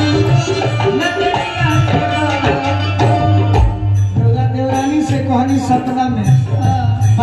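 Live stage music with a hand-drum rhythm under sustained instrumental lines; a woman's voice comes in over it about four seconds in.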